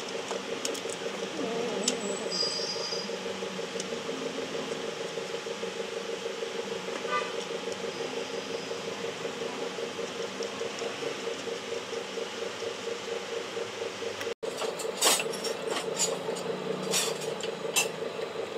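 A steady workshop machine hum with a fast, even pulse. In the last few seconds come sharp metallic clicks as a clutch alignment shaft is worked through the clutch disc and pressure plate.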